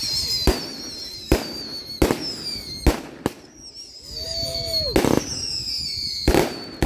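Fireworks display: a string of about seven sharp bangs from bursting aerial shells, with a high, slowly falling whistle sounding between them.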